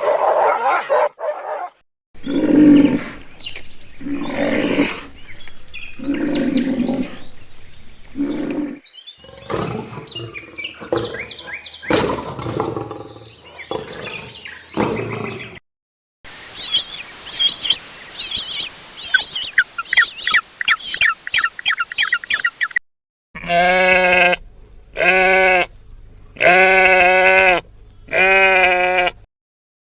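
A run of different animals' calls in separate short segments, ending with four loud, strongly pitched calls about a second and a half apart.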